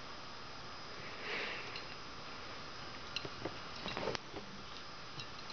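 A short breathy sniff a little over a second in, over a steady faint hiss. It is followed by a few light scratches and taps as a kitten wrestles a hand with its claws and teeth.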